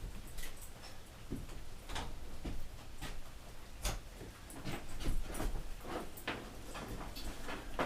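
Irregular light clicks and knocks, a few a second, as metal parts and hand tools are handled during repair work.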